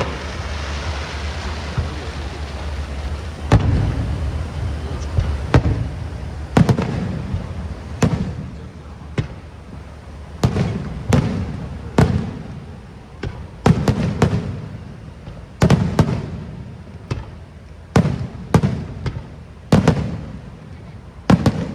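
Aerial fireworks shells bursting: about twenty sharp bangs, one or two a second, each with a short echo. A steady noise fills the first few seconds before the bangs begin.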